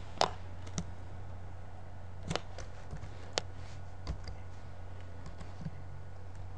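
Computer keyboard keys tapped one at a time, about seven sharp keystrokes and clicks spaced roughly half a second to a second apart, the loudest right at the start, over a steady low hum.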